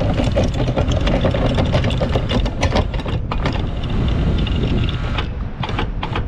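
Electric anchor windlass with an old bronze body hauling chain in under its motor, the chain links clanking as the anchor is drawn up to the bow roller. The motor stops about five seconds in, followed by a couple of short knocks.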